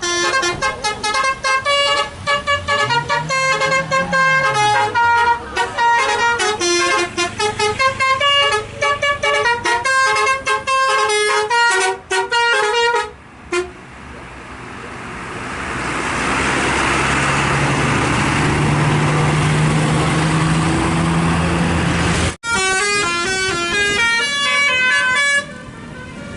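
Bus 'telolet basuri' multi-tone air horn playing a fast melodic tune of quickly changing notes for about thirteen seconds. Then a bus engine runs with a rising rush of noise, and after an abrupt cut the horn tune sounds again for a few seconds near the end.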